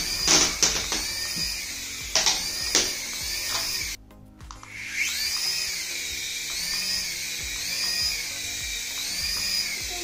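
Small toy RC helicopter's electric rotor motors whining, the pitch rising and falling about once a second, with a few sharp knocks in the first three seconds. The sound cuts out for about a second near the middle. Music plays underneath.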